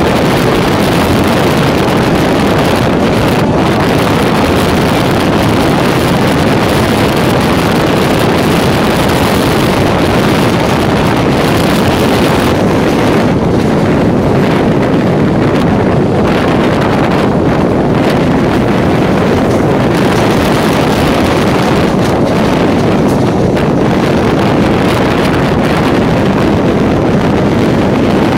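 Electric multiple unit (EMU) local train running at speed, heard on board: a loud, steady rumble of the coach with rushing air and wind on the microphone.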